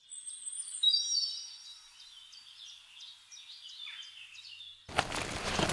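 A songbird singing high, whistled phrases, loudest about a second in. Near the end the sound cuts abruptly to footsteps on a muddy woodland floor.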